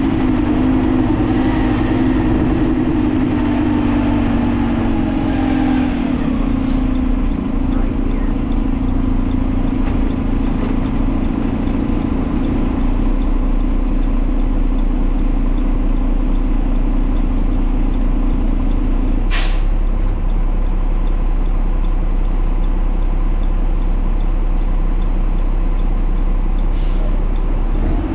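Side-load garbage truck's engine running steadily as the truck drives, its note dropping a little about six seconds in. A brief air hiss, typical of the air brakes, comes about two-thirds of the way through.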